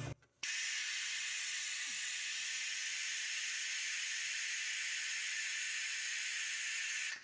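Compressed shop air hissing steadily through an OTC 8100 pneumatic fluid extractor to draw vacuum for sucking out engine oil. It starts suddenly about half a second in, as the air supply is opened, and cuts off near the end.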